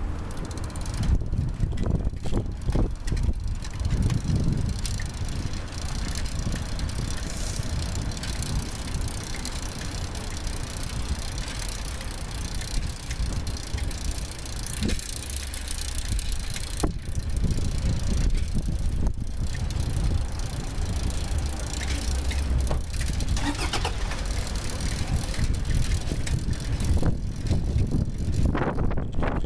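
Riding noise of a bicycle on a city street: a steady low rumble with rattling and a few sharp knocks.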